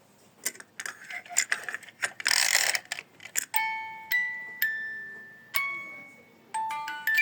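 Clicking and rattling with a short scraping burst, then a run of single chime-like struck notes at different pitches, each ringing and dying away, the last two close together near the end.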